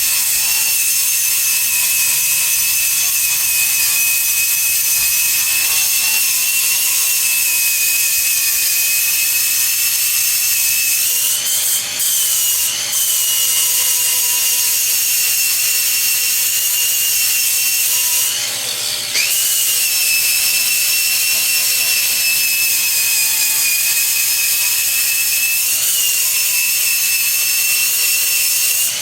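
Angle grinder running steadily, grinding down welds on steel pipe; its high whine sags and recovers twice, about 12 and 19 seconds in.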